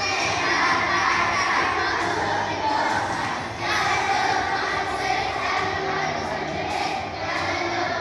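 A group of young children singing loudly together, their voices close to shouting.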